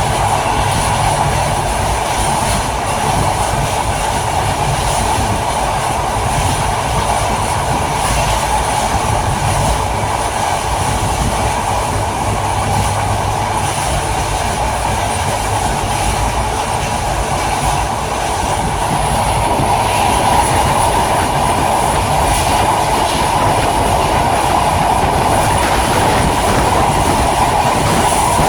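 Train running steadily on the rails: a continuous rumble and wheel noise with faint clickety-clack, getting a little louder about two-thirds of the way through.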